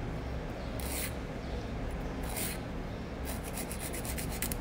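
Hand nail file rasping across a gel nail extension: two separate strokes, then a quick run of short strokes from about three seconds in.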